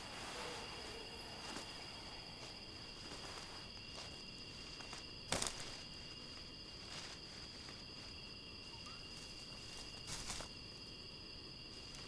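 Steady chirring of night insects such as crickets, with a few brief crunching footsteps on the forest floor, the sharpest about five seconds in and again around ten.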